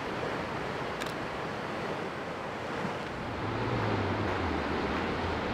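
Coastal wind and the wash of surf breaking on rocks below the cliffs, a steady rushing noise; a low rumble comes in about halfway through.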